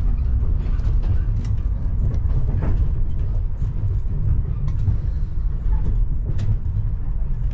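Inside a moving passenger train carriage: a steady low rumble of the coach running on the rails, with scattered light clicks and rattles.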